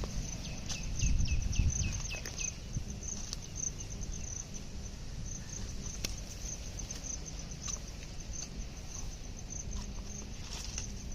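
Insects trilling steadily at a high pitch in a fast pulsing chorus. In the first two seconds a bird gives a quick run of about eight short descending notes, and there is some low rumbling early on.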